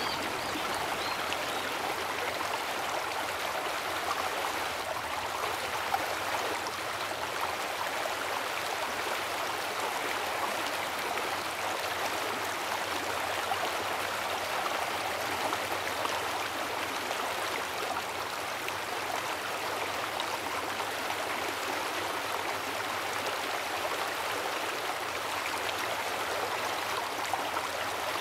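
River water flowing, a steady rush that holds even throughout.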